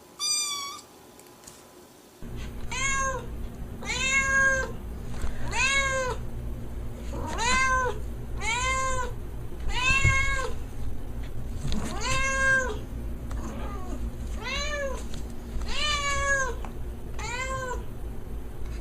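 Domestic cat meowing again and again: one short, higher meow falling in pitch at the start, then about eleven meows a little over a second apart, each rising and then falling in pitch, over a steady low hum.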